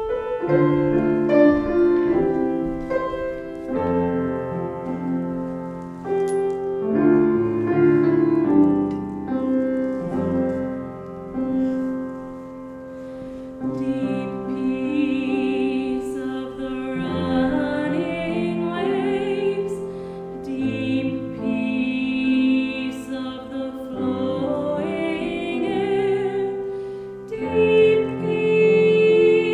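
A hymn with piano accompaniment: the piano plays chords alone at first, and singing with vibrato comes in about halfway through.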